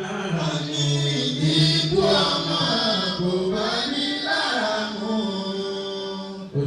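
Voices chanting over music with a steady low held tone beneath.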